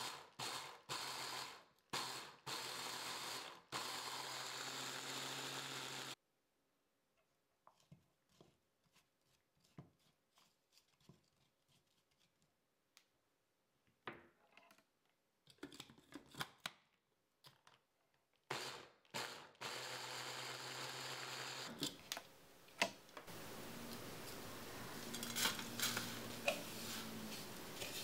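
Electric mini chopper pulsed in a few short bursts and then run for a few seconds, whirring as it blends crushed biscuits with melted butter for a tart base. It runs again for a few seconds later. Near the end come scraping and sharp clinks as the buttery crumbs are scraped and tipped out of the plastic bowl.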